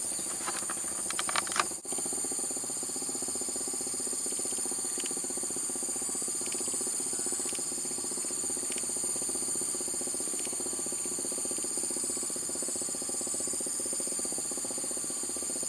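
Steady high-pitched drone of insects, with a steady low hum underneath that starts about two seconds in.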